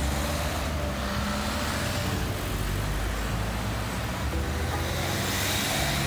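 Road traffic: cars and a van driving past on the street, a steady noise of engines and tyres.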